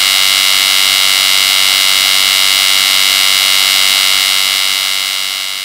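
Loud, steady electrical buzz with a hissing edge, fading out near the end.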